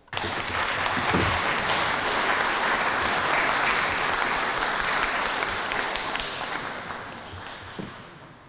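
Audience applauding: the clapping breaks out suddenly, holds steady for about six seconds, then dies away near the end.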